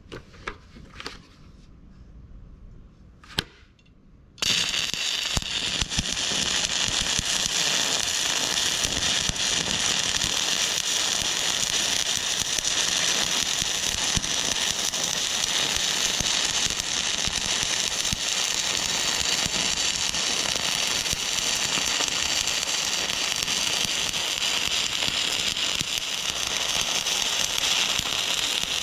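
A few light clicks, then about four seconds in a stick-welding arc strikes and burns with a steady, dense crackle as a weld pass is run on the cracked steel of an auger pilot bit.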